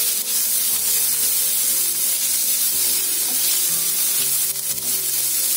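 Sliced onions, green chillies and shredded cooked chicken sizzling in hot oil in a nonstick frying pan as they are stirred with a wooden spatula: a steady frying hiss.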